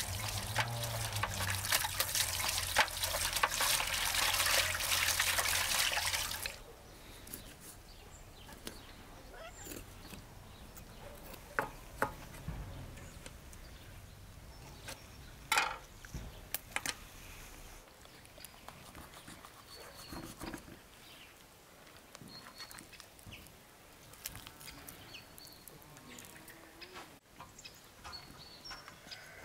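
Liquid pouring steadily for about six seconds, then stopping, followed by quiet handling sounds with scattered clicks and small knocks.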